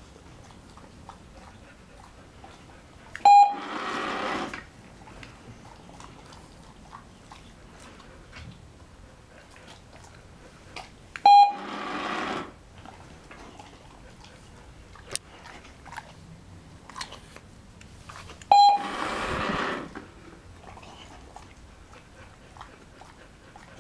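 Manners Minder treat dispenser giving its short beep three times, each followed by about a second of treats rattling out into its tray. Faint clicks between.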